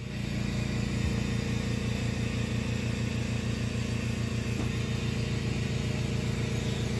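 Steady low machine hum with a fast, even throb, heard from inside a hyperbaric chamber as its machinery runs.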